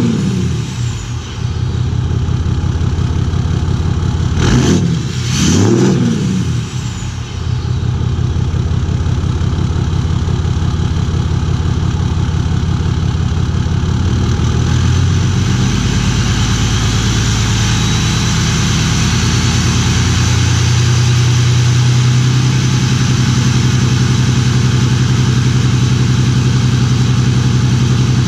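Ram 2500 Cummins 6.7 L inline-six turbo-diesel running through a damaged exhaust that may have fallen off, no longer sounding stock. It idles, takes two quick revs about five seconds in, then runs steadily and grows a little louder and fuller in the second half.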